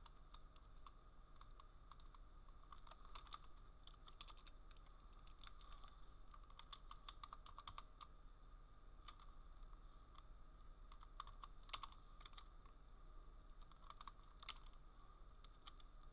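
Faint typing on a computer keyboard: several short bursts of key clicks with pauses between, over a steady faint hum.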